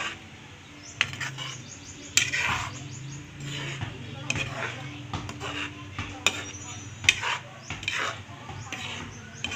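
Metal ladle stirring a coconut-milk stew in a wok, knocking and scraping irregularly against the pan, with the loudest clinks about two seconds in and again about seven seconds in.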